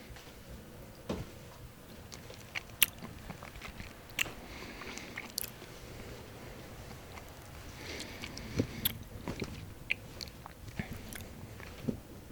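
Close-up mouth sounds of biting and chewing bread, with sharp crackles of crust between softer chewing, and a few low thumps in between.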